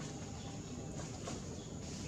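Outdoor ambience: a steady low rumble, a thin high steady insect whine, and a few faint clicks about a second in and near the end.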